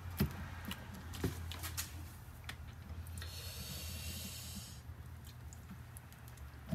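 Faint small clicks and rubbing of wires being worked into a crimp connector by hand, over a steady low hum, with a brief hiss about three seconds in.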